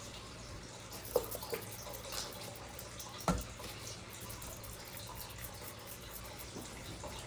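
Water dripping and trickling as a copper fire extinguisher is rinsed with clean water and a rag, with a couple of soft knocks against the metal.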